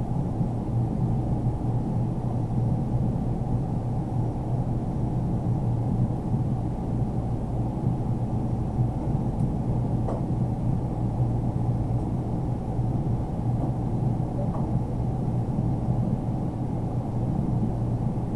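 Steady low rumble of background room noise, with a few faint clicks around the middle from hands working the heater cable inside a plastic dome camera housing.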